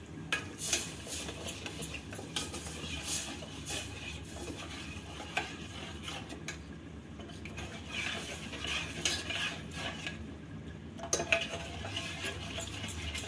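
Steel spoon stirring milk and jowar flour in a stainless steel saucepan, with repeated scrapes and clinks of the spoon against the pan, pausing briefly twice.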